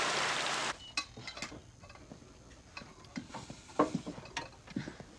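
A loud rush of water, cut off suddenly under a second in. After it comes a string of scattered metallic clinks and knocks from tools working on the pipes under a kitchen sink.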